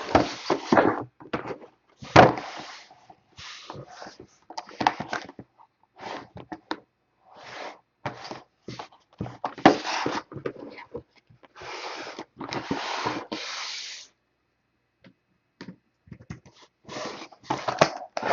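Sealed trading-card boxes being handled and shifted on a table: irregular taps, knocks and slides, with a few longer stretches of rustling.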